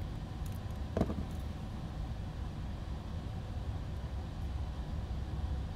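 Steady low background rumble, with one sharp click about a second in and a few faint ticks around it.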